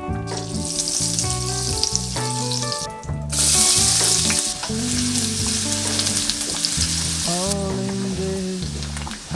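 Butter and olive oil sizzling in a nonstick frying pan, then sliced and minced garlic frying in it as a wooden spatula stirs. The sizzle breaks off briefly about three seconds in, comes back at its loudest, and grows softer in the last two seconds.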